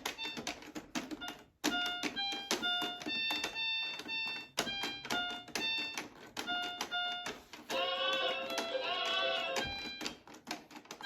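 Kids' electronic toy piano keyboard played key by key: a string of short, separate electronic beeping notes, each starting with the click of a plastic key. About eight seconds in, a longer wavering tone runs for nearly two seconds.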